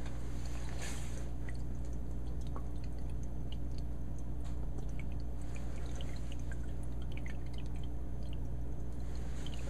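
Small aquarium's water running: a steady low hum with scattered faint drips and trickles, and a brief hiss about a second in.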